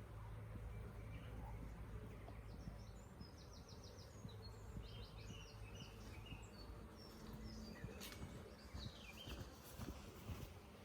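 Quiet outdoor ambience: small birds chirping and singing short, fast trills over a faint steady low hum, with a few faint knocks near the end.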